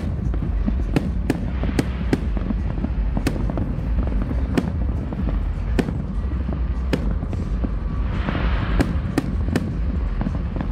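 Aerial fireworks going off: an irregular string of sharp bangs, one or two a second, over a steady low rumble, with a burst of hiss about eight seconds in.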